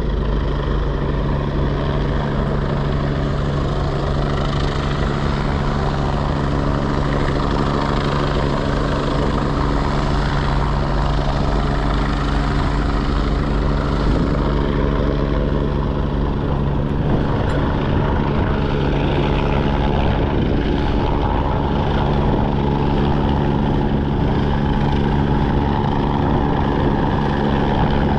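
Steady drone of a large engine: a low hum of several steady tones that never changes, under a rushing hiss.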